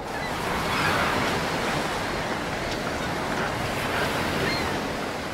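Ocean surf washing onto a beach: a steady rushing wash of waves.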